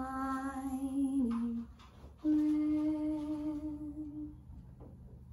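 A woman's voice singing a slow, unaccompanied lullaby-like song: a held note on the word 'shining' that steps down in pitch, then after a short breath a long hummed note that fades out about four seconds in.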